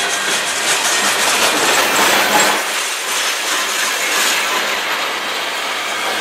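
Freight train cars rolling past close by: a steady rumble of steel wheels on the rails, with a quick run of clicks from wheels crossing rail joints in the first second or so.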